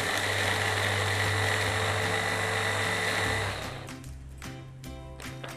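Electric mini chopper running steadily as it purees a thick date sauce, then switching off about three and a half seconds in. Background music and a few light knocks follow.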